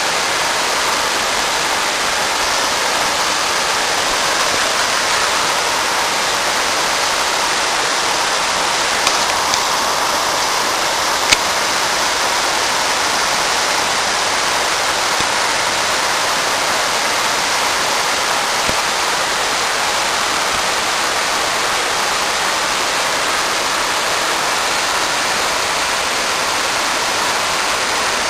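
Steady rushing water, an even hiss that never lets up, with a sharp click a little before halfway.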